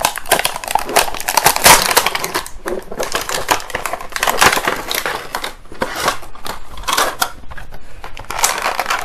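Clear plastic blind-bag packaging crinkling and crackling as it is torn open and rummaged through to take out a small toy figure. The crackle is dense and irregular throughout, loudest about two seconds in.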